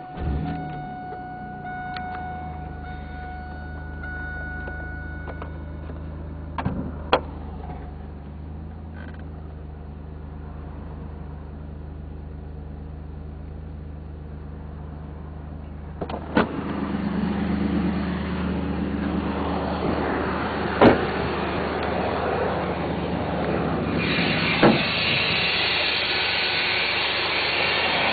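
Chevrolet Camaro's 3.8-litre V6 starting and then idling, with a high steady tone during the first few seconds and a few sharp clicks. The engine gets louder about two-thirds of the way in, and a steady hiss joins it near the end. This is the weird noise the owner has heard since the cold weather came, shortly after an oil change.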